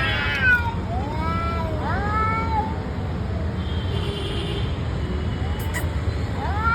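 Tomcats yowling in a territorial standoff: a few long, wavering calls in the first couple of seconds, then another starting near the end, over a steady low rumble.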